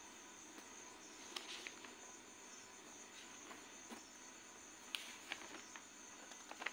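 Near silence: steady background hiss with a few faint, scattered light clicks.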